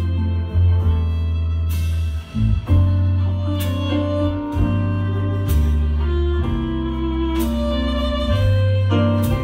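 Live band playing a slow passage: electric bass holding long low notes that change every second or two, under keyboard chords, with cymbals struck every couple of seconds.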